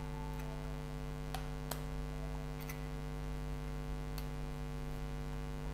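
Steady electrical mains hum with a few faint, light clicks scattered through it.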